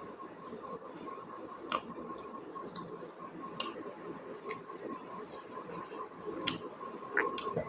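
Close-up eating sounds: soft wet chewing with scattered sharp clicks at irregular intervals, over a faint steady high hum.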